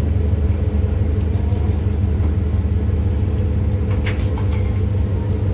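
Heavy diesel engine idling steadily: a low, even rumble, with a couple of faint clicks.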